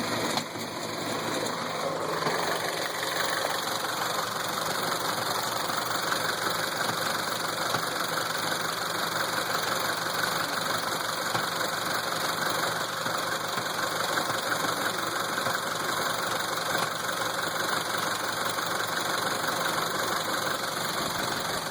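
1.4 TSI EcoFuel engine idling steadily, with a knock that the owner puts down to a faulty flywheel.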